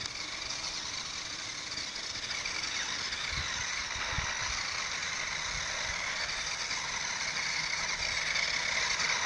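Remote-control toy snowmobile running over snow with a steady high whine that grows slightly louder toward the end, with a few faint low knocks.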